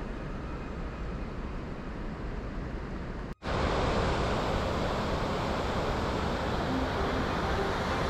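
Steady rush of flowing river water. A little over three seconds in it cuts off for an instant and comes back louder and brighter as the roar of Bow Falls' whitewater cascade.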